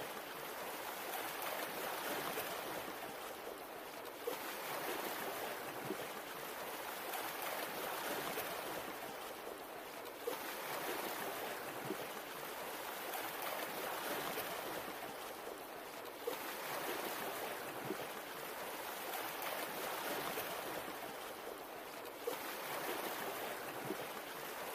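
Water rushing and lapping, swelling and easing about every six seconds, with a small click near each swell, as from a short water sound effect played on a loop.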